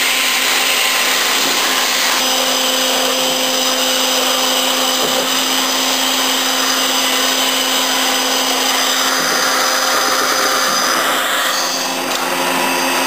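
1994 Makino A-77 CNC horizontal machining center running under power: a steady mechanical whir with several steady tones. The tones change about two seconds in and again near the end.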